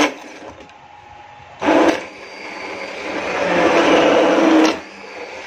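Electric hand (immersion) blender pureeing a pot of boiled, softened tomatoes. It runs in two short bursts, then a longer run of about two and a half seconds that grows louder and cuts off near the end.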